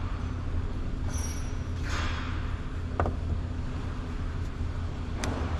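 A steady low hum, with a few light clicks and taps as small metal pump parts are handled on a workbench, one sharp tap about three seconds in and another near the end.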